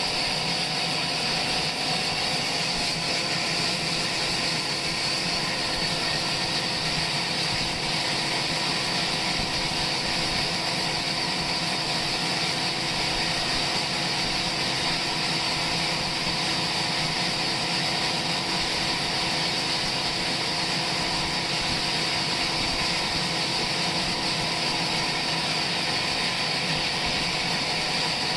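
Sawmill machinery running steadily: an unchanging mechanical hum and whine over a hiss, at an even level throughout.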